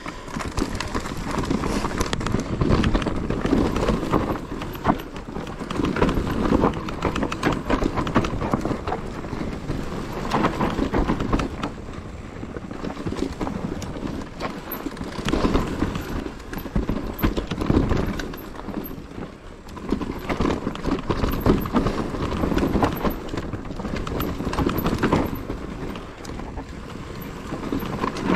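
Enduro mountain bike ridden over rough, stony trail: a dense clatter of knocks and rattles from the tyres and bike that comes and goes in waves, easing briefly about two-thirds of the way through.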